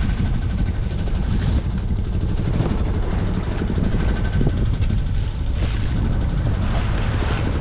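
Steady low rumble on board a small sailboat under way, from its engine running with wind buffeting the microphone.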